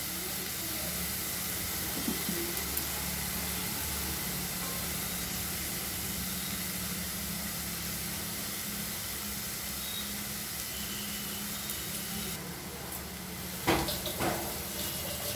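Banana-flower and potato filling sizzling gently in a kadai, a steady hiss. A few brief knocks near the end.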